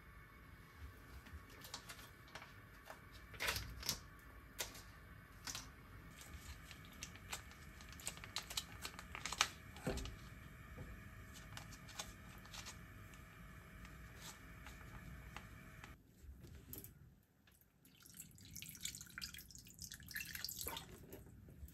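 Faint kitchen handling sounds: a plastic pouch of boiled azuki beans crinkling and being torn open, the thick beans squelching out into a saucepan, then water poured from a plastic jug into the pot near the end.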